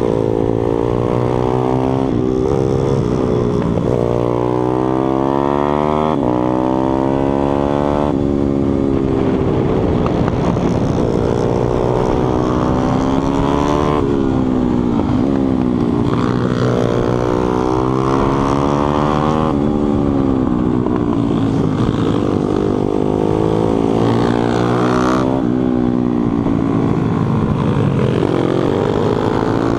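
Pitbike supermoto's single-cylinder engine heard from on the bike at racing pace: the revs climb again and again, drop sharply on each gear change or throttle lift, and fall away into corners.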